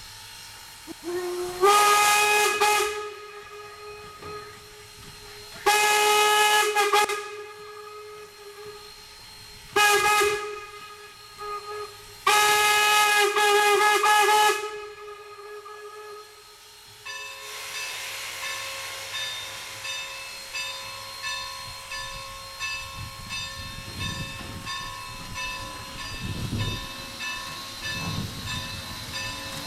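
Steam whistle of Strasburg Rail Road's 4-8-0 steam locomotive No. 475 sounding four blasts, long, long, short, long: the grade-crossing signal, the first blast sliding up in pitch as it opens. After that a steady ringing tone with a regular pulse carries on, with a few low chuffs near the end.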